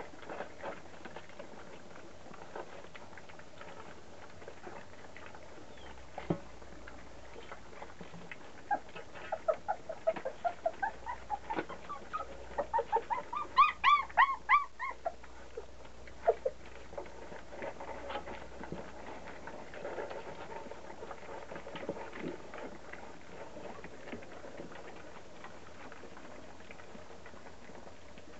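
Puppies eating dry kibble from a metal pan: scattered clicks and crunches throughout. Partway through comes a run of short, high whines and yelps that grows louder and then breaks off.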